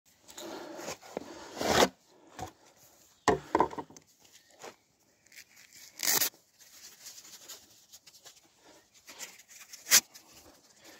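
Close-up rustling, scraping and tearing handling noises as work gloves are pulled on, in irregular bursts, with a sharp knock near the end. The chainsaw is not running.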